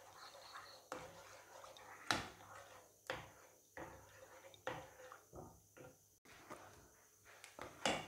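A spoon stirring thick tomato-and-cream gravy in a pan: faint squelching, with a few short, light knocks and scrapes of the spoon against the pan at irregular intervals.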